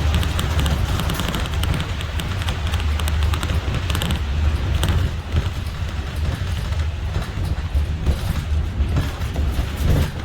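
Steady low rumble and road noise of a vehicle in motion, with faint rattles on top.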